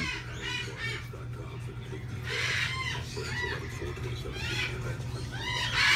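Pet birds in a bird shop calling: short chirps and squawks that come and go over a steady low hum.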